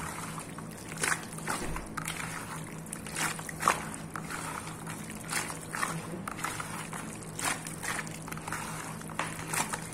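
Diced pork being worked by hand in a plastic tub of wet paprika-and-garlic adobo marinade: irregular wet squelches and slaps, the sharpest a little before four seconds in, over a steady low hum.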